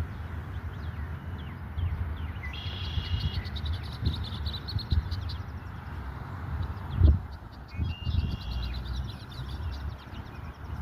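A bird calling twice, each call about a second long with a few seconds between them, over a low rumble of wind or handling on the microphone. A sharp thump about seven seconds in is the loudest sound.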